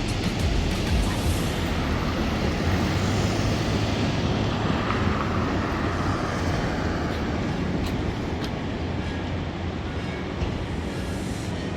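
Steady rushing noise over a constant low rumble, with no clear events.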